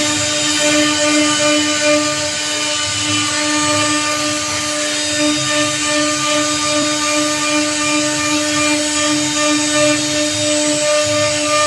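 J-1325 CNC router's spindle running with a steady whine as its carving bit cuts into a teak door panel, over a constant hiss of wood being milled.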